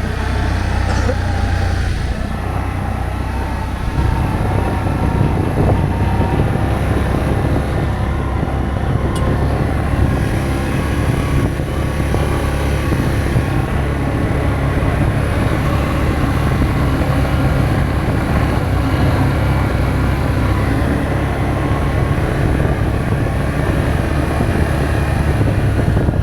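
Vehicle engine and road noise: a loud, steady low rumble that goes on without a break.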